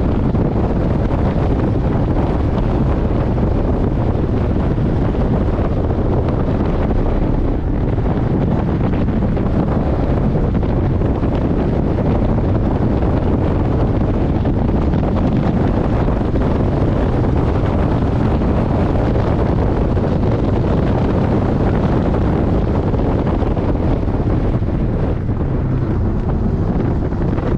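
Steady, loud wind rush buffeting the microphone, with the Porsche 718 Boxster GTS's engine and road noise mixed in underneath as the car runs at track speed.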